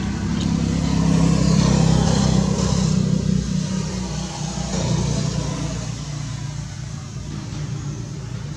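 A small motorbike's engine running as it passes along the road, growing loudest a second or two in and then fading away.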